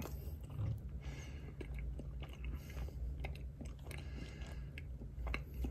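A person chewing a mouthful of firm baked cheesecake, with small soft mouth clicks, over a low steady hum.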